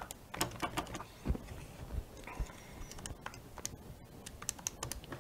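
Calculator keys being pressed: a run of short, irregular clicks as a calculation is keyed in.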